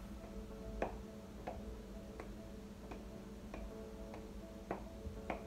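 Hands patting a small ball of corn masa flat, a soft pat about every two-thirds of a second, over background music with sustained notes.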